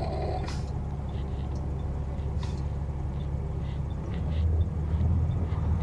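Semi truck's diesel engine running steadily while driving, heard from inside the cab, growing louder about four seconds in. Two brief clicks.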